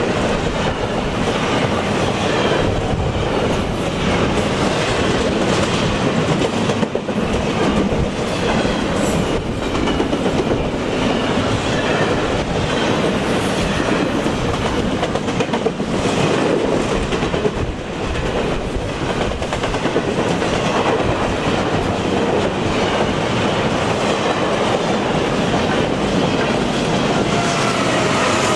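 Double-stack intermodal container train rolling past: steady wheel-on-rail noise with the clickety-clack of the well cars' wheels.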